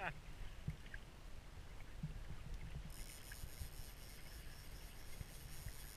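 Low rumble of wind and water around a small boat on open water, with a few light knocks; a faint high hiss comes in about halfway.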